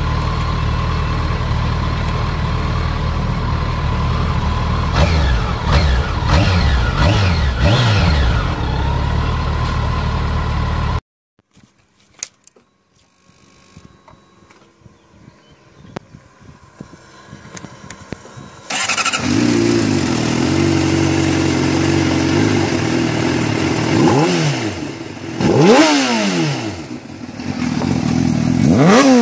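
Kawasaki ZX-14R's inline-four idling, blipped a few times in quick revs. It cuts off suddenly, leaving a quiet stretch with a few faint clicks. Then a Honda CBR sportbike with a Yoshimura aftermarket exhaust comes in abruptly running, and is revved in sharp blips a few times.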